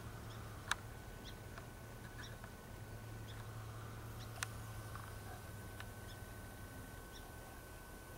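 Quiet field ambience: a low steady hum with faint, short, high-pitched chirps every second or so and two sharp clicks, about a second in and midway through.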